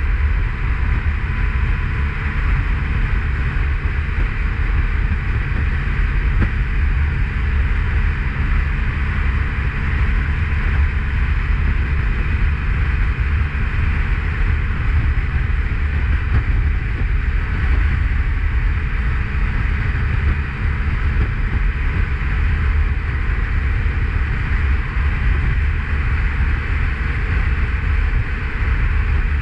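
Motorcycle cruising at a steady speed: constant wind buffeting on the microphone over engine and road noise, with no change in speed.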